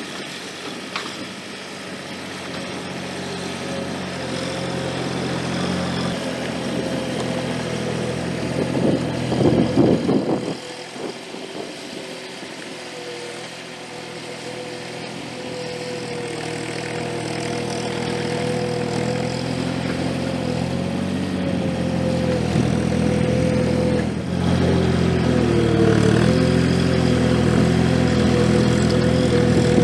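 Gehl 4835 SXT skid steer's engine running under work, with a steady high whine over it. There is a brief loud rush of noise about ten seconds in, and the engine grows louder over the second half.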